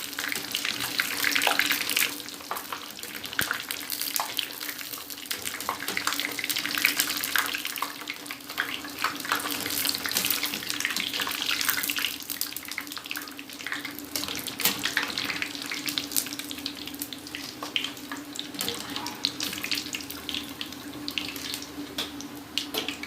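Strips of shami pita bread deep-frying in plenty of hot oil: a continuous crackling sizzle with many small pops, over a steady low hum.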